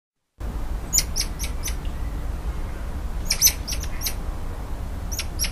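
Squirrel monkey calls: short, high chirping peeps in quick clusters about a second in, around three to four seconds in, and near the end, over a steady low rumble of background noise.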